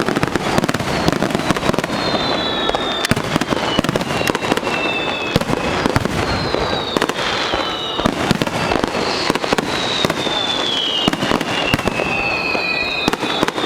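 Fireworks display going off continuously: dense rapid crackling and popping. From about two seconds in there is a series of high whistles, each falling in pitch.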